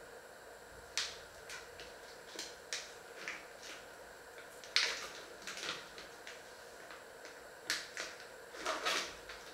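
Irregular light clicks and knocks of kitchen utensils and dishes being handled at a counter, about a dozen in all, the loudest about five seconds in and a cluster near the end.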